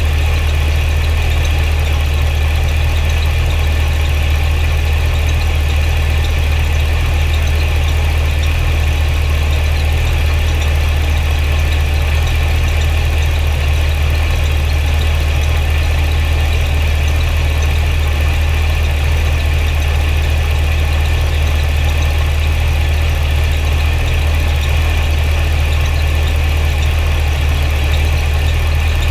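The supercharged 6.2 L V8 of a 2009 Cadillac CTS-V idling steadily.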